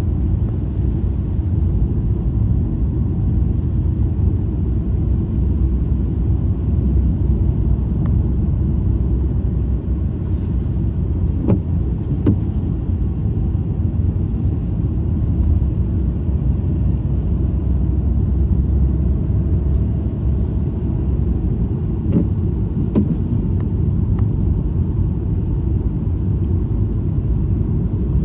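Steady low rumble of a moving car's tyre and engine noise heard inside the cabin, with a few light knocks around the middle and again later on.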